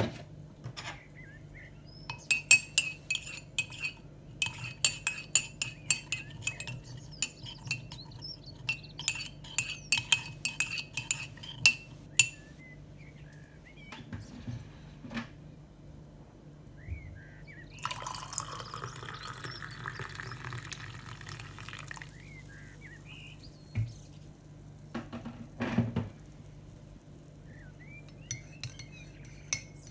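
A metal utensil clinks quickly and repeatedly against dishware for about ten seconds, as in stirring, each clink ringing briefly. Then liquid pours for about four seconds, followed by a few scattered knocks and clinks.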